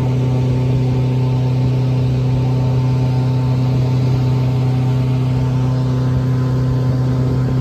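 Airboat's engine and large air propeller running at a steady cruising speed, a loud, even drone with a strong low hum.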